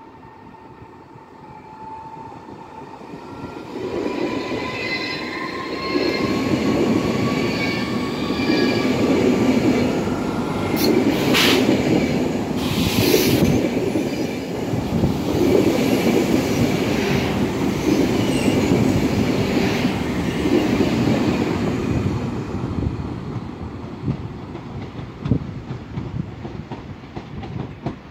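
ED250 Pendolino electric multiple unit passing through a station: a thin electric whine rising slightly in pitch as it comes in, then a loud rumble of wheels on rail in repeated surges as the cars go by, with two short hisses near the middle, fading as the train draws away.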